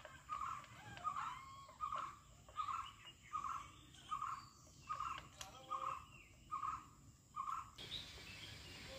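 A bird calling over and over, a short call a little more than once a second, until near the end.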